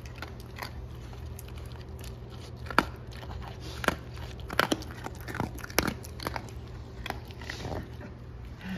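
Basenji eating dry kibble off a silicone slow feeder mat: irregular crisp crunches and clicks as it picks up and bites single pieces, about a dozen spread unevenly over several seconds.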